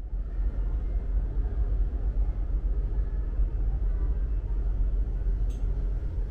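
Steady low rumble of the Hamayu car ferry's engines and machinery, heard from inside the ship. A short click comes about five and a half seconds in.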